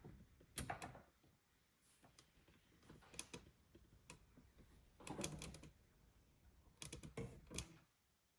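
Handling noise: four short clusters of clicks and light knocks, about two seconds apart, as hard objects are picked up and set down.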